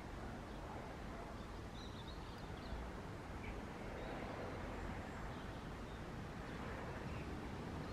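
Steady outdoor background noise with a few faint, short bird calls, mostly in the first couple of seconds.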